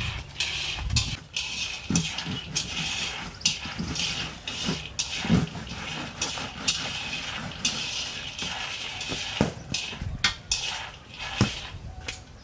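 Peanuts being dry-roasted in a wok, stirred so they rattle and scrape against the metal, with irregular clicks and knocks.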